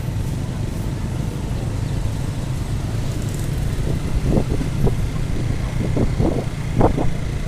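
Steady low rumble of road traffic, with short snatches of voices from about four seconds in.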